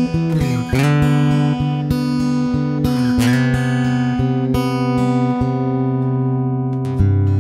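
Ibanez AC340 acoustic guitar played fingerstyle: picked chords with low bass notes that ring on, a new chord struck just after the start, about a second in, about three seconds in and again near the end.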